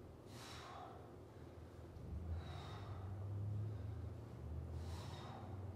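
A man breathing hard through the mouth while exercising: three sharp exhales about two and a half seconds apart, each as a leg is pulled up toward the arm in a plank. A low steady hum comes in about two seconds in.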